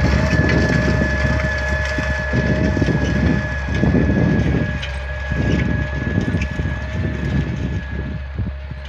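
IMT 5106 tractor's diesel engine running steadily under load while pulling a harrow through ploughed soil, with a steady high whine, slowly fading as the tractor moves away. Wind buffets the microphone.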